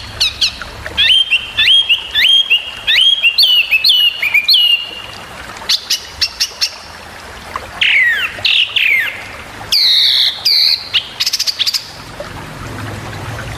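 Small songbirds calling in quick bursts: a fast chirping trill, a run of sharp upswept whistled notes, then downslurred whistles and loud sharp notes, quieter in the last second or so. These are sharp 'tembakan' call phrases of the kind used as masteran, tutor song for caged songbirds.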